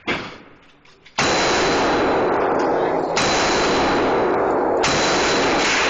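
A single shot from an M&P AR-15 rifle right at the start, dying away within a second. About a second in, a loud, harsh, unbroken noise begins and holds at one level throughout, with no separate shots standing out in it.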